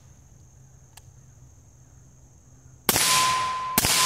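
Two suppressed 5.56 rifle shots, about a second apart near the end, from a 7.5-inch-barrel AR short-barreled rifle with a Liberty Triumph suppressor. They are still pretty loud. After the first shot a steady ringing tone sets in, the steel target ringing from the hits.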